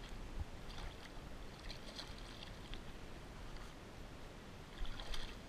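Water lapping against a plastic fishing kayak's hull, over a steady low rumble, with a few short splashy rustles while a small fish is handled over the boat.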